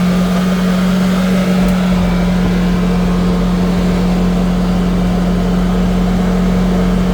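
An engine running steadily at constant speed, a loud low hum that holds one pitch throughout.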